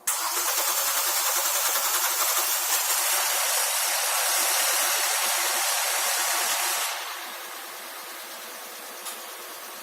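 A loud, steady hiss of rushing air or spray starts suddenly. About seven seconds in it drops abruptly to a quieter hiss that carries on.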